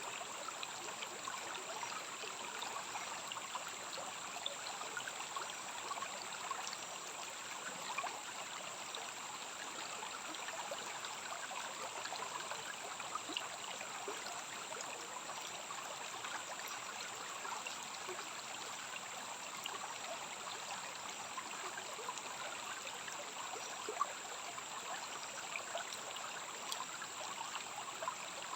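Steady running water of a rainforest stream, with small splashes and ticks through it, over a constant high-pitched tone.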